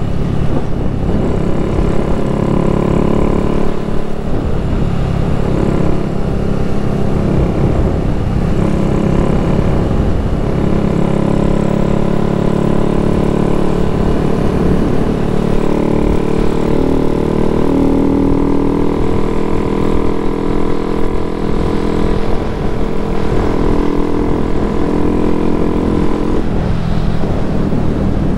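Honda Grom's small single-cylinder four-stroke engine running steadily at cruising speed, with wind rumbling on the microphone. The engine note falls away near the end.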